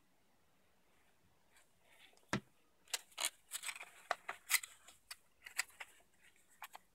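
One sharp knock about two seconds in as the glue bottle is set down on the cutting mat. Then a run of crisp rustles and crackles as the glued paper pieces are folded and pressed together by hand.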